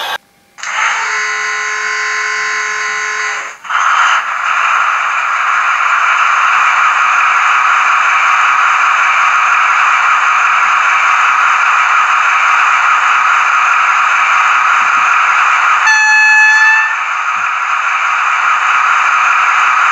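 Trix H0-scale V90 (DB class 290) diesel locomotive model's mfx sound decoder playing through the model's small speaker. After a short gap there is a steady tone of several pitches for about three seconds, then the diesel engine sound running steadily. Near the end a horn sounds for about a second.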